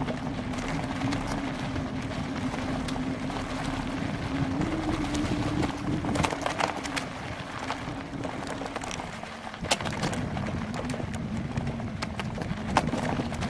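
Riding noise from a bicycle on a rough trail: wind rumbling on the camera's microphone, a steady hum, and scattered rattles and knocks as the bike goes over bumps.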